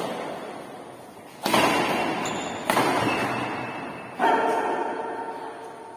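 Badminton racket strokes on a shuttlecock: sharp smacks a second and a half or so apart, each ringing on in the echoing hall, then a fourth sharp sound about four seconds in that lingers with a held tone.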